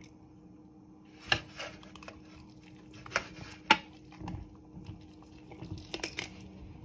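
A person chewing a huge spoonful of a Chipotle burrito bowl, faint, with a few sharp clicks (one about a second in, two more around three seconds in) over a low steady hum.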